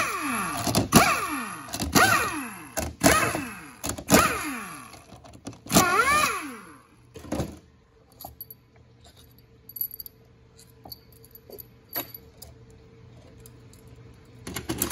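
Handheld power driver spinning bolts out of a 4L80E valve body's accumulator housing in a string of short bursts, its motor whirring up and winding down each time, for about the first seven seconds. After that come light metal clicks and clinks as the loosened housing and its springs are handled.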